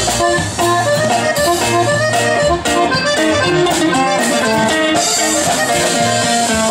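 Norteño band playing live: button accordion carrying the melody over strummed guitars, bass and a drum-kit beat, with no vocals.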